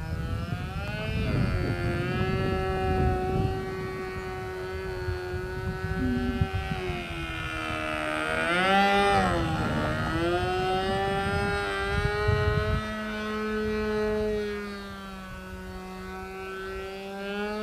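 Evo .36 two-stroke glow engine on an RC plane running in flight, with a buzzing note that rises and falls as the plane manoeuvres. The pitch climbs and then drops sharply as the plane makes a low pass past about halfway through. A low rumble underneath cuts off about two-thirds of the way through.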